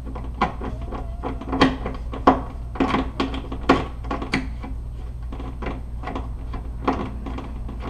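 Irregular sharp metallic clicks and taps of a screwdriver turning the screw in a concealed European cabinet hinge and the hinge parts being handled, over a steady low hum.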